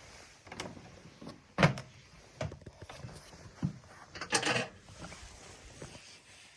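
Knocks and clunks of a bread maker being handled as it is taken apart, with a sharp knock about a second and a half in and a longer scraping rattle a little after four seconds.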